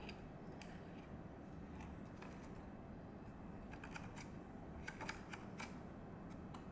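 Clear plastic fruit clamshell being handled and flexed in the hands: scattered light plastic clicks and crackles, a quick cluster of them about five seconds in, over faint steady background noise.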